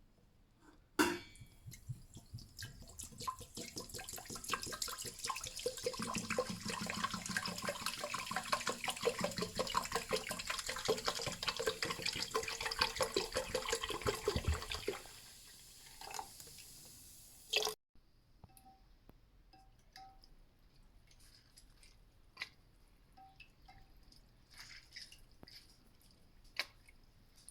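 Liquid, most likely Fanta soda, being poured and fizzing for about seventeen seconds, with a pitch that rises as the container fills. After a sudden cut come a few light clicks.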